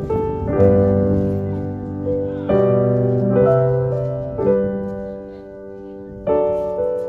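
Background music: piano chords struck every second or two, each ringing on and fading.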